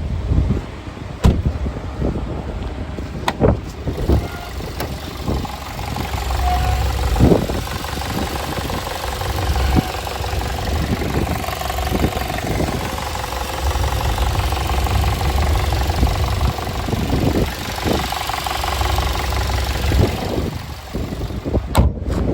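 2016 VW Jetta engine running steadily, with irregular knocks and rattles over the engine sound, which the owner takes for timing chain rattle.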